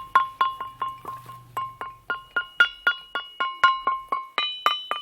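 Ringing rocks struck rapidly in succession, about five or six bell-like clinks a second, each strike ringing on a clear pitch; the note jumps higher near the end as a different spot or stone is hit.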